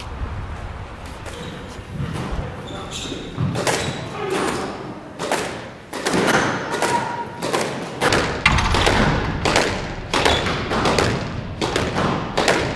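Squash ball being hit back and forth: sharp racket strikes and smacks off the court walls, echoing in the enclosed court, about one to two hits a second, starting about three seconds in.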